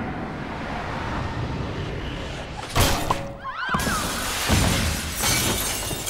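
Glass basketball backboard shattering under a slam dunk: a sharp crash about three seconds in, then a shower of glass shards pouring down with another heavy crash a second or so later.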